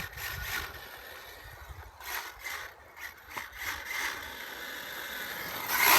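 Brushless electric RC rally car driving on a wet tarmac road, with tyre spray and rattling, rising to a louder rush near the end.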